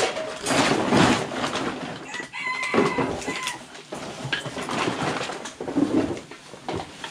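Rustling and shuffling of plastic bags and clutter being sorted by hand, with a bird call held for about a second and a half starting about two seconds in.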